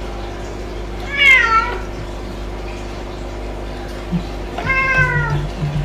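A cat meowing twice, once about a second in and again near the end, each meow sliding down in pitch.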